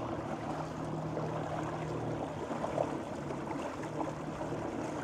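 Water rushing and splashing past the hull of a small boat under way at full speed on electric power, an ePropulsion Spirit 1.0 Plus outboard plus two Minn Kota trolling motors. A steady low motor hum runs under the water noise.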